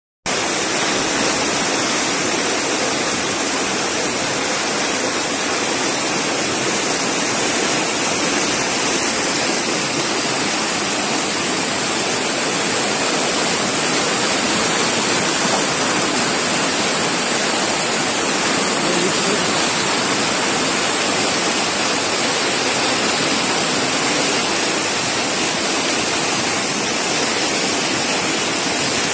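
Floodwater rushing and churning in a torrent down a street, a loud, steady rush of water without a break.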